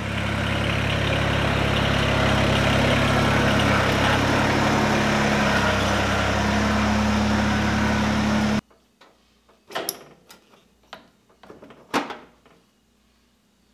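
Kubota BX2380 compact tractor's three-cylinder diesel engine running steadily as the tractor is driven in, cutting off abruptly about eight and a half seconds in. Then a few sharp clicks and knocks as hands work a tool at the front loader's hydraulic fittings.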